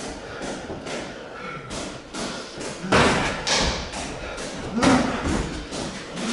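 Thuds and slaps of Muay Thai sparring: boxing-gloved punches and shin-guarded kicks landing on a partner's guard and body, with the loudest strikes about three seconds in and again near five seconds.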